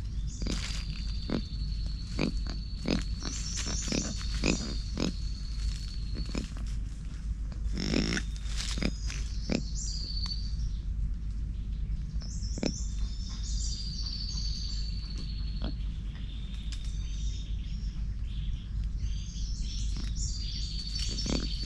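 Lemurs foraging in dry leaf litter close by, the leaves crackling and rustling in quick irregular clicks, busiest in the first ten seconds. A high buzzing trill comes and goes over a steady low rumble.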